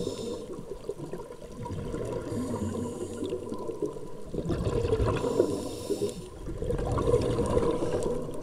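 Underwater recording: water rushing and bubbling around the camera, with a high hiss that comes and goes three times, each lasting one to two seconds, and a faint steady tone.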